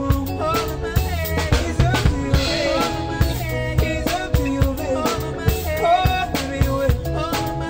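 Live band playing a song: a drum kit keeps a steady beat with kick and snare under an electric bass line, with keyboard and guitar melody lines on top.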